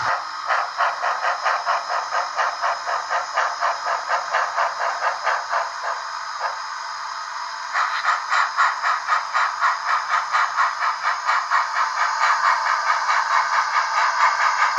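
Digital sound decoders in two Blackstone HOn3 model steam locomotives playing a steady, rapid steam chuff with almost no bass, thin and hissy, about four to five beats a second. The chuffing eases off about six seconds in, then comes back stronger and a little quicker.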